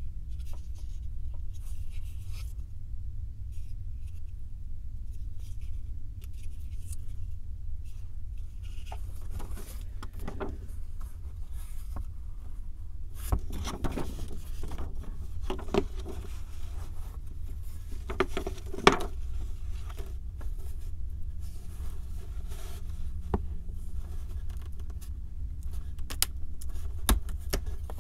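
Hands handling and fitting small 3D puzzle furniture pieces: light scraping, rubbing and tapping, busier after the first third, with a few sharper clicks. A steady low hum runs underneath.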